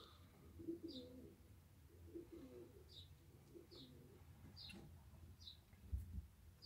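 A dove cooing faintly in repeated short phrases, with short high chirps of a small bird about once a second.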